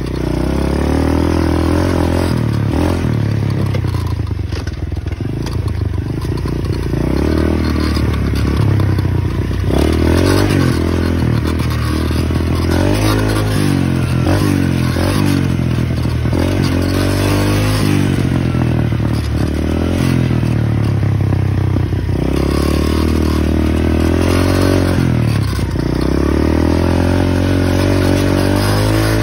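125 cc dirt bike engine being ridden hard, its pitch climbing and dropping again and again as the throttle is opened and closed.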